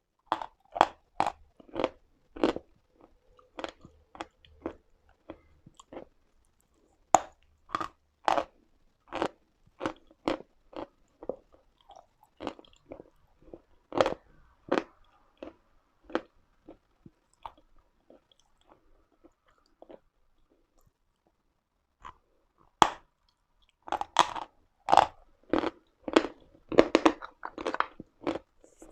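Usla­da chalk bitten and chewed close to the microphone: runs of sharp, crisp crunches. There is a lull of a few seconds about two-thirds of the way through, then a dense run of crunching.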